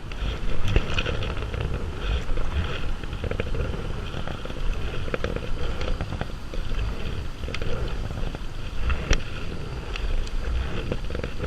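Water sounds around a kayak moving on a river, with wind buffeting the microphone in low rumbles and a few sharp small clicks.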